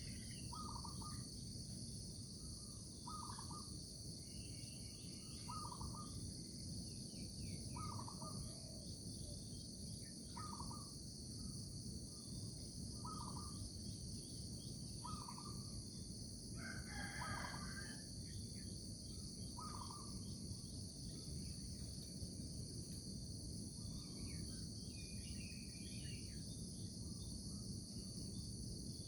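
A morning countryside soundscape: a steady high chorus of crickets and other insects, with a short call repeating about every two and a half seconds. A rooster crows once about halfway through.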